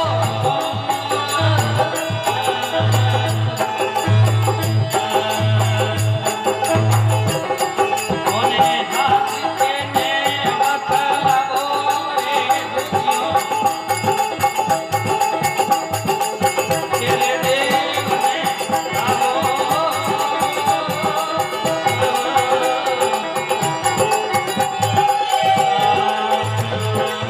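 Instrumental stretch of a folk bhajan: an electronic organ plays a wavering melody over held drone notes, with rattling hand percussion. A low drum beat is heard for the first several seconds, drops out, and returns near the end.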